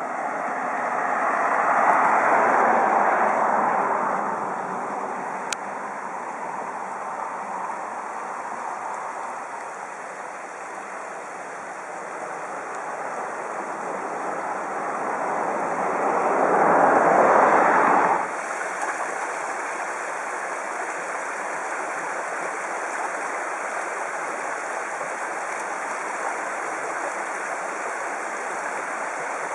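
Shallow creek rushing steadily over stones. Two vehicles swell past on the road, the first about two seconds in, the second around seventeen seconds, ending abruptly.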